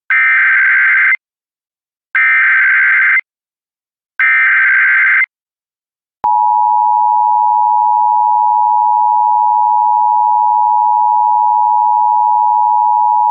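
Emergency Alert System tones. First come three one-second bursts of the SAME digital header, a rapid warbling data tone, each followed by a second of silence. About six seconds in, the steady two-tone attention signal (853 and 960 Hz sounded together) begins and holds.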